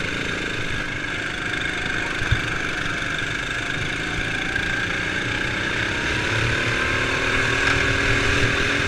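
Sodi RX7 rental kart's engine running at racing speed, heard onboard, its pitch climbing steadily through the second half as the kart accelerates. A single sharp knock about two seconds in.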